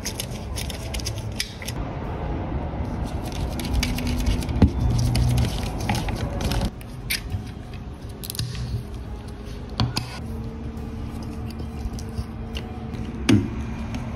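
Small screws being driven into the metal chassis of a 1/18 scale diecast model car, then its parts being handled and pressed together. A dense run of light clicks and scrapes, with a few sharper knocks.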